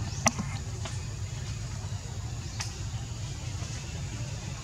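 Steady low outdoor rumble, with one sharp click shortly after the start and a fainter click about two and a half seconds in.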